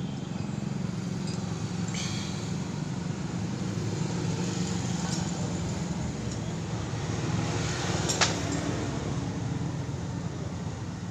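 Steady low background rumble of road traffic, with a few light clicks and one sharper click about eight seconds in.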